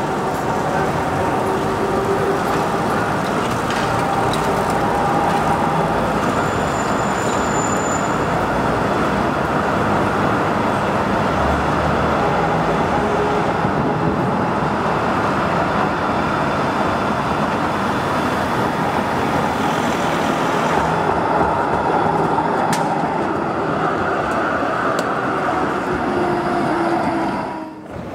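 Steady city street and traffic noise as a tram approaches along rails set in the street. Near the end the sound drops briefly.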